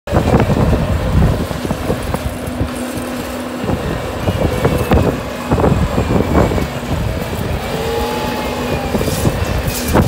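Bobcat compact track loader's diesel engine running under load while it pushes dirt and debris, with repeated clanks and knocks from the bucket and tracks.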